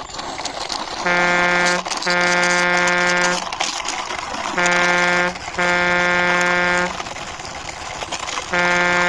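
A truck-horn sound honking in pairs, a short honk then a longer one, twice, with a third pair starting near the end.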